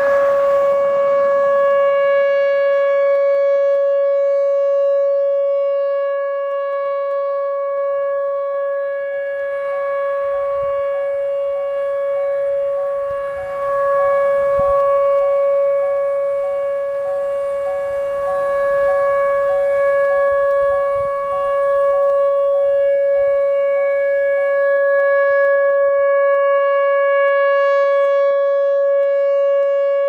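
Whelen Vortex R4 electronic tornado siren sounding a steady, unchanging tone during a siren test. Its loudness swells and dips slightly as the rotating head turns.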